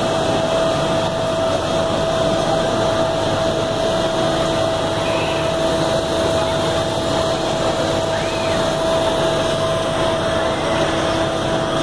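Spinning gondola amusement ride's machinery running: a steady whir with a constant hum that does not change throughout.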